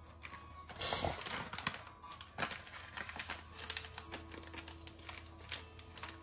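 Foil tea packet crinkling and rustling as it is handled and folded shut, a run of short crackles with a louder rustle about a second in.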